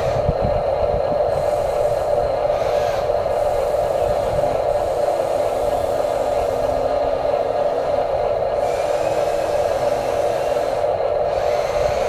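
Huina 1593 RC excavator's electric motors whirring steadily as the arm works the bucket in gravel and the upper body slews round.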